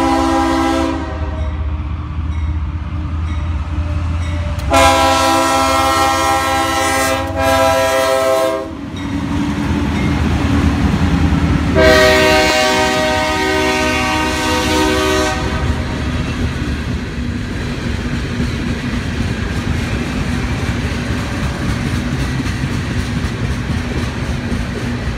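Diesel freight locomotive's multi-chime air horn sounding for a grade crossing in three blasts: a short one at the start, then two longer ones of about four seconds each. Under and after the horn, the steady rumble and wheel clatter of the loaded freight cars rolling past.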